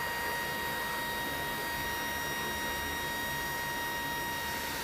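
C-130J Super Hercules Rolls-Royce AE 2100 turboprop engines running while the aircraft taxis: a steady rushing noise with a high, even whine, whose lower tone drops away near the end.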